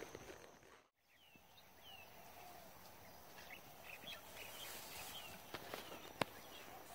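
Faint outdoor ambience with scattered short bird chirps, and a single sharp click about six seconds in.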